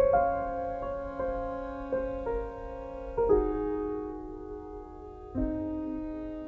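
Background music: slow piano chords, each struck and left to ring and fade away.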